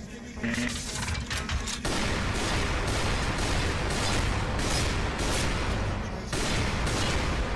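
Battle sound effects from an animated episode's soundtrack: rapid gunfire and explosions. They start about half a second in and thicken into a dense, continuous din about two seconds in.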